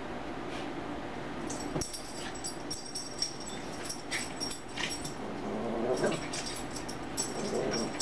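Two small dogs play-fighting: metal collar tags jingle rapidly in quick clusters from about a second and a half in, with short dog vocal sounds near the end.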